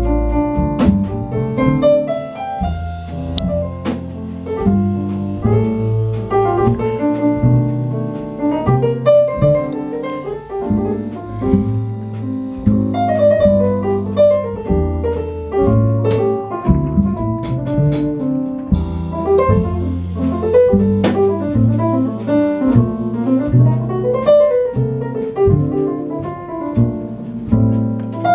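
Live jazz from a band of piano, double bass and drums: the piano plays quick runs over a walking bass line, with cymbal strokes throughout.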